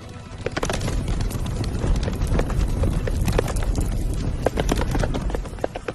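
Hooves clattering fast on hard ground: several horses running, their hoofbeats overlapping in a dense, irregular patter.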